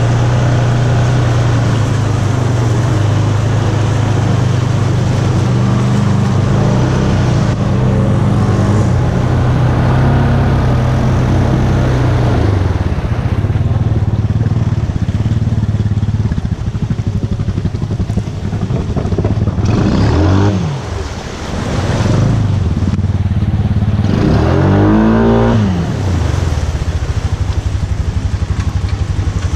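Honda Foreman 500 ATV's single-cylinder engine running under load as it wades through deep water, churning and splashing water around the machine. The engine note dips and climbs again about twenty seconds in, then revs up and back down a few seconds later.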